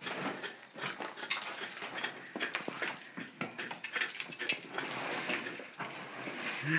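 A hand pick striking the cave's rock wall again and again in irregular blows, chipping out channels for the electrical wiring.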